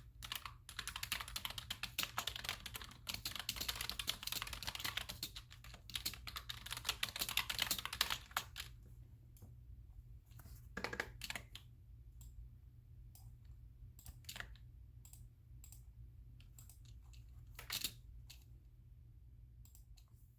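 Computer keyboard being typed on in a fast, dense run for about the first nine seconds, then only scattered single clicks, over a steady low hum.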